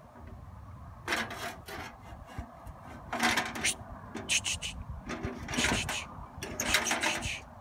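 Irregular bursts of rustling and scraping as a raccoon caught in a steel foothold trap is being released, starting about a second in and coming in uneven clusters.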